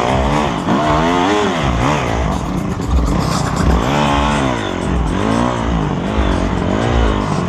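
Dirt bike engine heard from the rider's helmet, revving up and dropping back over and over, roughly once a second, as the throttle is opened and closed on a sandy, rutted track.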